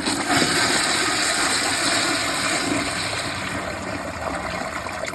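Glacier Bay Pro Series toilet flushing with its tank overfilled: a loud rush of water that starts suddenly, runs steadily and eases off near the end.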